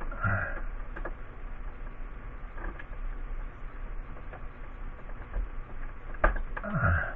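Small clicks and handling noises from work on electrical wiring, with a sharper click about six seconds in. A brief low pitched sound comes near the start, and another falls in pitch near the end, over a steady low hum.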